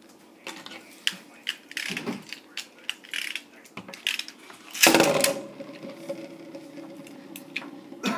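Beyblade spinning tops on a wooden tabletop: a run of light clicks and knocks, then a loud rasping burst about five seconds in, after which a steady hum runs on, and another knock near the end.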